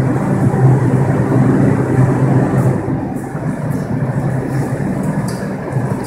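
R142 subway train standing in the station with its doors open, giving off a steady low hum over the general noise of the platform.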